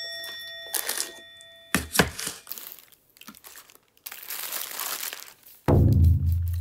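A bell-like chime rings at the start and dies away within about two seconds; a paper burger wrapper crinkles as it is handled, most around four to five seconds in. Near the end a loud, deep booming tone hits and slowly fades.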